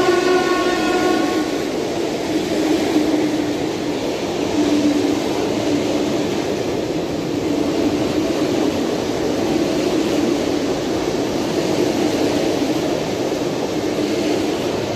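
Electric multiple-unit train running alongside the platform, with a steady rumbling rail noise throughout. Its horn sounds at the start and stops about a second and a half in.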